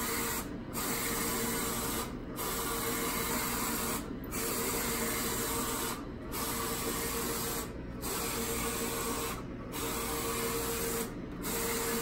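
Roland FJ-50 wide-format inkjet printer printing: the printhead carriage sweeps back and forth across the media with a steady whirring hiss, dropping off briefly at each turnaround just under every two seconds.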